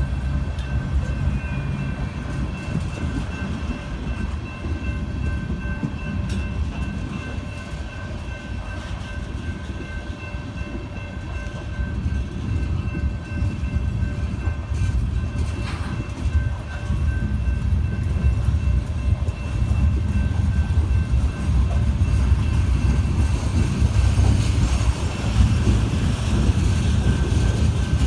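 A loaded grain freight train rolling past: its tank cars and covered hoppers rumble and clatter steadily along the rails. The rumble grows louder in the second half.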